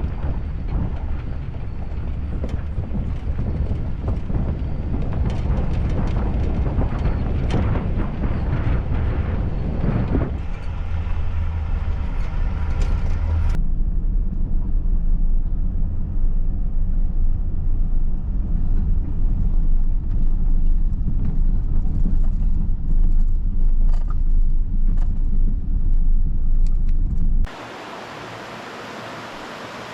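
Vehicle driving: a steady low rumble of engine and road noise that shifts abruptly about 10 and 14 seconds in. Near the end it cuts to a quieter, even hiss.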